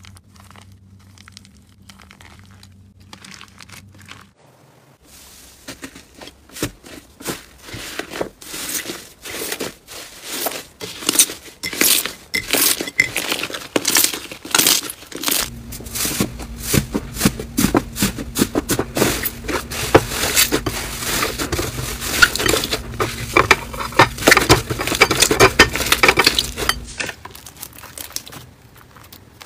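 Slime being squeezed, kneaded and pressed by hand, with dense rapid crackling, clicking and squishing. It is quiet with a faint low hum for the first few seconds, then the crackling builds and grows louder.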